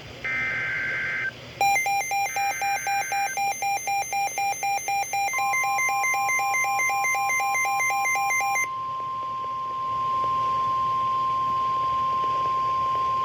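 NOAA Weather Radio alert sequence heralding a Severe Thunderstorm Warning. Two short buzzy digital SAME header data bursts come first, then a rapid electronic alarm pulsing about four times a second. About five seconds in, the steady single-pitch warning alarm tone joins in and holds on after the pulsing stops.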